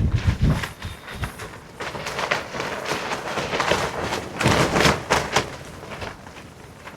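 Wind gusting against the microphone in low rumbling blasts, twice, with rustling and flapping in between.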